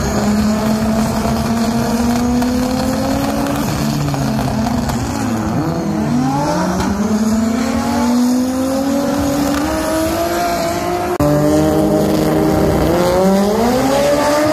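Nissan GT-R drag cars accelerating hard off the line: loud engines whose pitch climbs, drops at each gear shift and climbs again.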